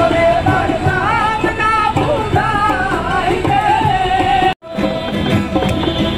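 Baul folk music played live: singing with a wavering pitch over a dhol drum, acoustic guitar and banjo. The sound drops out for a moment about four and a half seconds in, then the drum and strings carry on.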